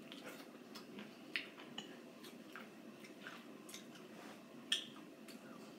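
Mouth sounds of a person biting and sucking on a peeled lime: scattered wet clicks and smacks, with two sharper clicks about a second and a half in and near the end.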